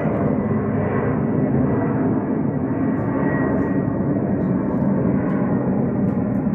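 Jet airliner flying overhead: a steady rumble with a thin high whine held over it.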